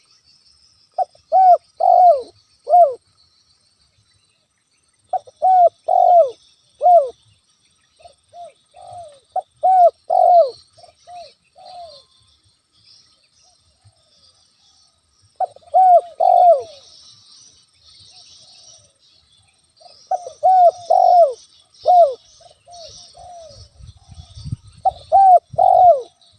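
Spotted dove (tekukur) cooing. It gives repeated phrases of three or four loud, falling coos every few seconds, with a softer run of coos in between, over a faint steady high hiss. A low rumble comes in near the end.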